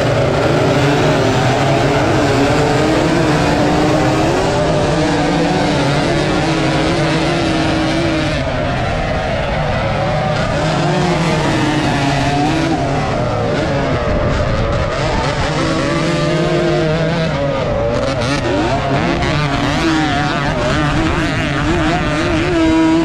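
Small motocross bike engine revving hard from a standing start, its pitch climbing and dropping again and again through gear changes, with other racing motorcycles close by.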